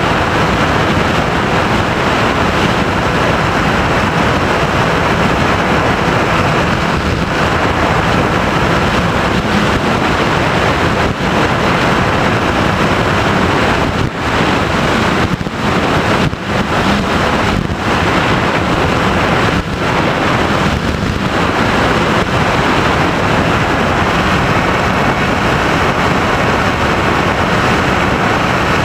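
Steady, loud rush of airflow over the onboard camera's microphone of an FPV Raptor model plane in flight, the motor and propeller buried in it, with a few brief dips in the middle.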